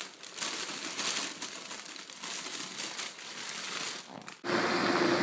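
A plastic bag of salad greens crinkling and rustling as the leaves are tipped into a blender jug. About four seconds in, this cuts off suddenly and a blender motor runs steadily with a constant hum.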